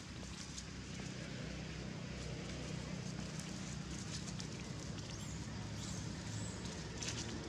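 Steady outdoor background hiss with a low hum underneath, and a few faint clicks near the end.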